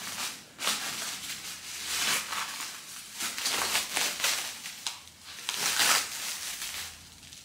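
Clear plastic wrap crinkling and rustling in irregular bursts as plastic-wrapped metal bars are handled.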